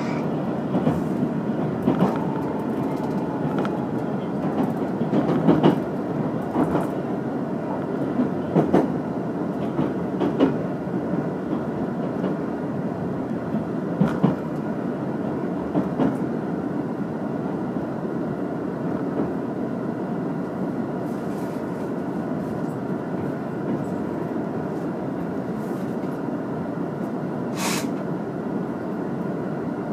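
Limited express train running on the rails, heard from inside the carriage: a steady rumble with wheels clacking over rail joints, the clacks thinning out after about 16 seconds. A brief sharp hiss comes near the end.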